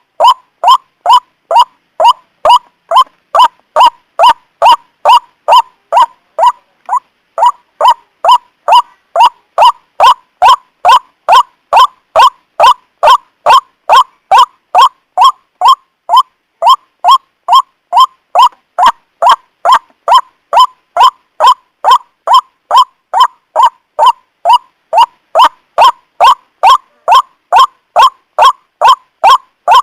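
White-breasted waterhen (ruak-ruak) calling over and over, loud honking notes at about two a second, with a short break about seven seconds in. This is a lure call used to draw the birds in for trapping.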